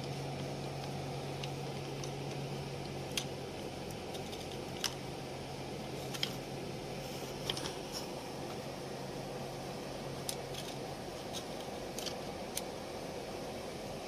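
Scattered light clicks and taps from handling small parts or tools, over a steady low hum that fades away about eight to ten seconds in.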